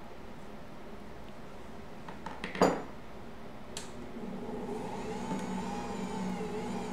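A single sharp clack about two and a half seconds in as the plastic dough scraper is taken out of the bowl and set down, with a lighter click a second later. From about four seconds in, the Ankarsrum stand mixer runs louder and steadier, its dough hook kneading whole-wheat bread dough in the rotating steel bowl.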